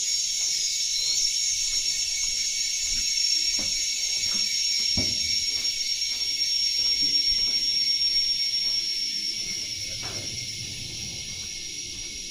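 Rainforest insect chorus: a steady, high-pitched drone with one held high note running through it, fading a little near the end.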